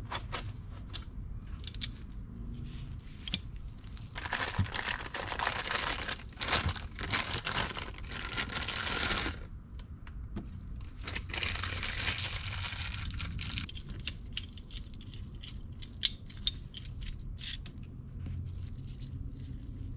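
Plastic packaging bags crinkling in two stretches of a few seconds as pistons and connecting rods are unwrapped, with small clicks and taps of the metal parts being handled and set down.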